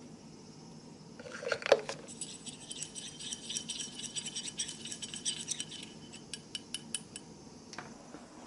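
A thin rod clinking and scraping against a small metal paint dish as paint is stirred. There are a few sharp clinks about a second in, then a quick run of light ticks for several seconds that thins out near the end.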